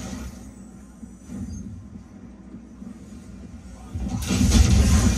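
First-person shooter game audio played through a Sony A5000 soundbar and heard in the room: a low rumbling backdrop of combat effects, then from about four seconds in a loud, heavy burst of effects with deep bass.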